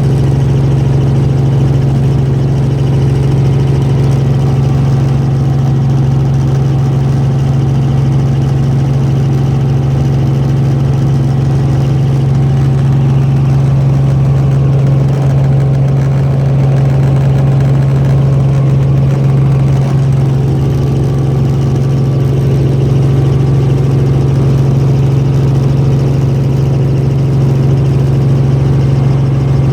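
Helicopter in flight heard from inside the cabin: a loud, steady hum with one strong low tone and fainter steady tones above it, unchanging throughout.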